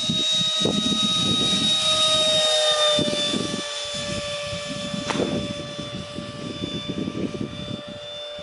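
Ducted fan of a scratch-built radio-controlled F-18 model jet whining steadily as it flies past. Its pitch dips slightly about three seconds in and the high rush fades after. Wind buffets the microphone throughout.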